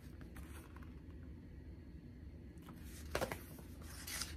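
Pages of a picture book being handled and turned: faint paper rustling, with two short swishes near the end, over a low room hum.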